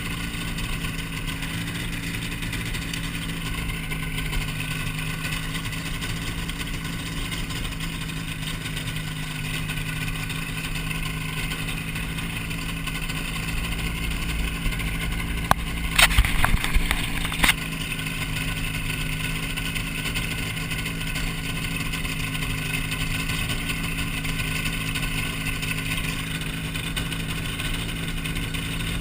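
Hy-Tek Hurricane ultralight's engine droning steadily in flight, with wind noise. A brief cluster of sharp knocks about halfway through.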